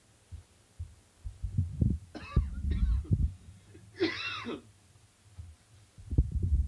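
A woman laughing in three short, high bursts, about two seconds in and again at four seconds, over low thumping and rumbling.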